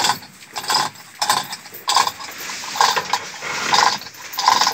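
Hook-on lifting gear taking up the weight of a KamAZ truck gearbox, worked in repeated strokes. Each stroke gives a squeaky metallic ratcheting sound, about once a second.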